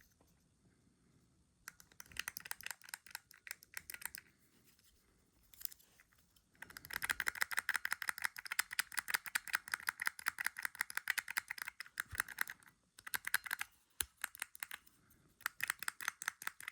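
Rapid runs of small, sharp clicks from a lift call button being handled and pressed. The clicks come about ten a second in several bursts, the longest lasting about six seconds in the middle.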